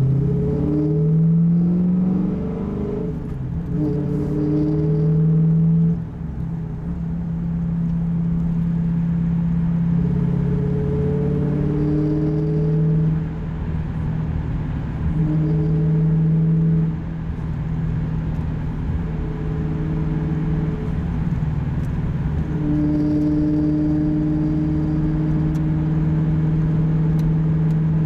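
2005 Pontiac GTO's LS2 V8 through a Spintech exhaust and Kooks headers, heard from inside the cabin while driving. The engine note rises in pitch under acceleration at the start, then holds a steady cruising drone that eases off and swells again a few times with the throttle.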